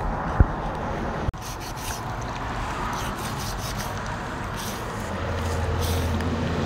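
Knife scraping and cutting the fatty skin off raw pork pieces: a steady rubbing, scraping sound, with one sharp knock about half a second in. A low engine hum rises near the end.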